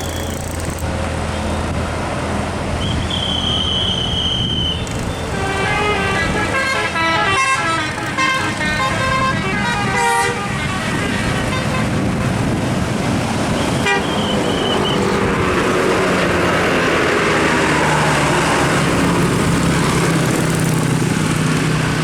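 Multi-trumpet 'telolet' musical horn on a vehicle playing a quick tune of stepped notes for about five seconds, with short single high horn tones before and after it. Vehicle engines and traffic run underneath and grow louder near the end.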